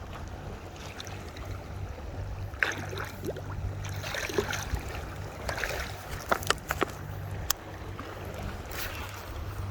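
A low, steady motor hum runs throughout. From about two and a half seconds in, scattered splashing and several sharp clicks and knocks sit over it.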